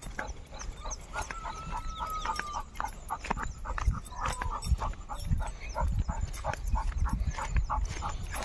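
Pit bull panting in quick, rhythmic breaths while pulling hard on its leash, with a brief thin whine about a second in.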